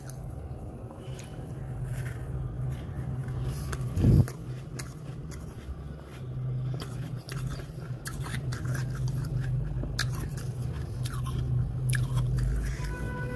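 Freezer frost being bitten and chewed, with scattered crisp crunches and one loud thump about four seconds in, over a steady low hum.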